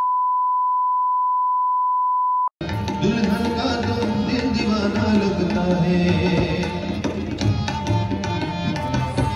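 A steady, high, single-pitch censor bleep lasts about two and a half seconds and cuts off sharply. It is followed by live ghazal music with tabla drumming and a sung melody.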